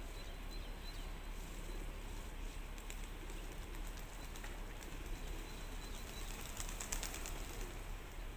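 Outdoor birds, with an even background hiss and a few sharp clicks, clustered about seven seconds in.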